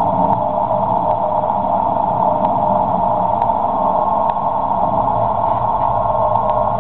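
Icom IC-735 HF receiver giving a steady hiss of band noise, squeezed into a narrow pitch band by its Inrad filter, with a few faint static clicks. No beacon keying stands out from the noise.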